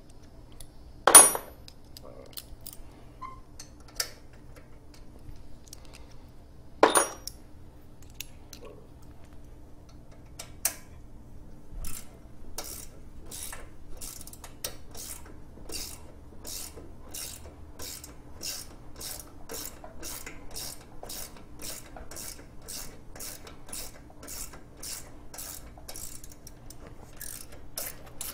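Metal hand tools clanking sharply twice against the mower, then a long steady run of ratchet-wrench clicks at about two a second as bolts holding the Briggs & Stratton engine's top cover are worked loose.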